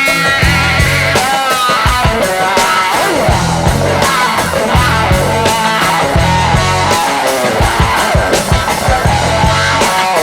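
Rock background music with electric guitar and a steady beat.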